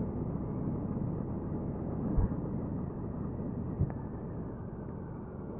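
Riding noise on a moving motorcycle: a steady low rush of wind and engine on the rider's microphone, easing slightly, with light knocks about two and about four seconds in.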